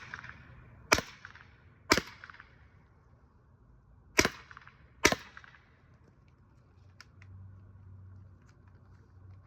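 TR68 .68-calibre less-lethal air pistol firing four sharp shots: two about a second apart, then after a pause of about two seconds two more about a second apart, each with a short fading tail.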